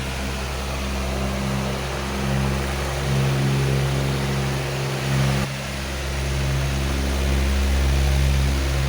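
Powerful electric fan running steadily: a rush of air over a low motor hum whose strength swells and fades every few seconds.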